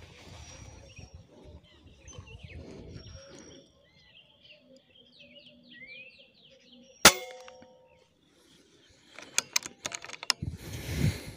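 Air rifle firing once about seven seconds in: a single sharp crack with a brief metallic ring. Small birds chirp before the shot, and a run of clicks and knocks from handling the rifle follows.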